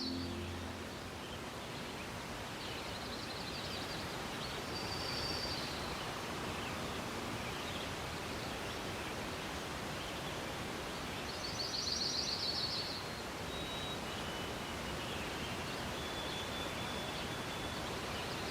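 Outdoor ambience: a steady soft hiss with birds calling over it, a few short high trills and, in the second half, some thin, drawn-out whistled notes.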